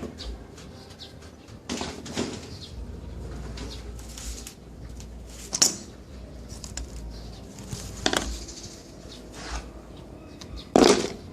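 Hands handling desktop computer parts: a string of scattered clicks, knocks and rustles, with the loudest knock near the end, over a faint low hum.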